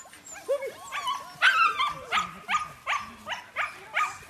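Husky puppies yipping: a string of short, high-pitched yips, about two or three a second.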